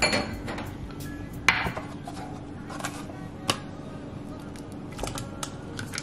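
Metal spoon clinking and tapping against a stainless steel mixing bowl and a plastic tub as a soft filling is scooped in, several sharp clinks a second or two apart, over light background music.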